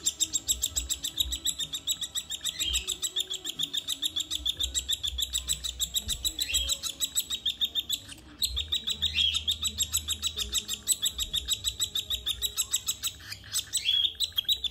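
Baby cockatiel giving rapid, steady begging chirps, about five or six a second, as it is hand-fed from a syringe. The chirps break off briefly about eight seconds in.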